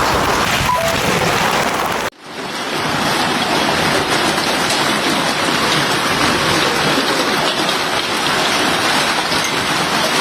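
Heavy hailstorm: hail and rain pelting down in a dense, steady hiss. It cuts off sharply about two seconds in and picks up again as a second stretch of the same downpour.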